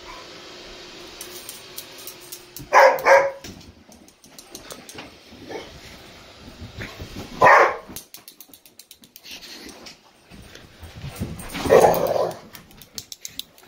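Dog barking: a quick double bark about three seconds in, a single bark a few seconds later, and a longer, drawn-out bark near the end.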